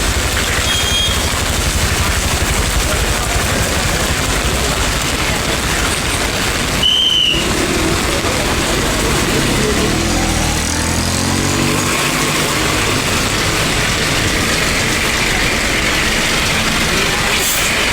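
Steady hiss of heavy rain mixed with road traffic. A short high beep sounds about seven seconds in, and about ten seconds in a vehicle engine rises in pitch as it passes.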